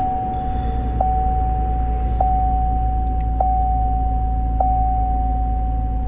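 Trailblazer's dashboard warning chime sounding in the cab, a steady single tone renewed with a click about every second and a quarter. The 4.2-litre straight-six engine gives a low steady rumble underneath, just after a cold start.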